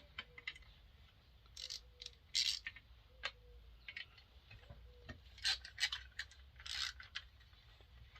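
Small metal parts and hand tools clicking, scraping and rattling while a McCulloch 7-10 chainsaw is being taken apart. There are scattered light clicks and a few louder short scrapes, about two seconds in and again in the second half.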